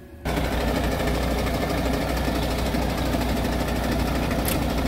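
Diesel engine of a 500-horsepower MAN tractor unit idling steadily, starting about a quarter second in, with a short high click near the end.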